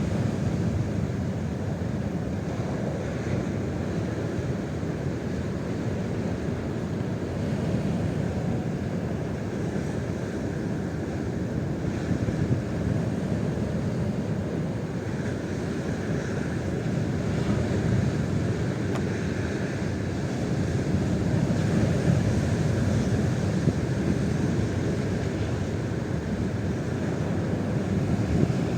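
Strong wind blowing across the microphone: a steady rushing rumble that swells and eases in gusts.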